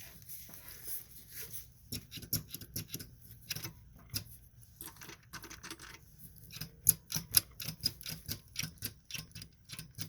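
Irregular mechanical clicking from a Honda Z50's engine and gearbox being turned over by hand while the shifter is worked, the clicks coming faster from about two-thirds of the way in. The shifting is out of adjustment: the gearbox finds neutral where it shouldn't, which the owner puts down to something slightly out of play.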